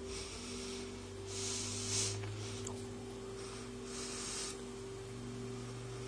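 Steady low electrical hum of a running Athlon desktop PC, its fans and drives spinning during a software install. The lowest hum steps up slightly in pitch about five seconds in. A few soft breathy hisses come and go over it.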